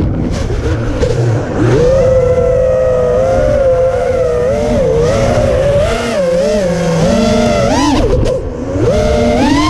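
FPV freestyle quadcopter's motors whining steadily, the pitch wavering up and down with throttle changes. There is a brief drop about a second and a half in, and sharp upward swoops as the throttle is punched near the end.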